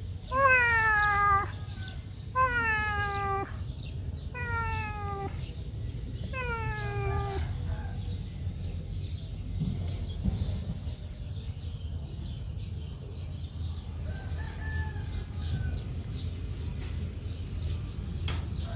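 Kitten meowing four times, about two seconds apart, each call about a second long and falling in pitch; after that only a steady low rumble with a faint call later on.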